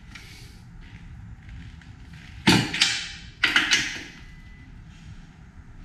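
Sharp metal clacks from a wrench and socket on the rock slider bolts as they are torqued down: two pairs of clacks about a second apart, each ringing out briefly.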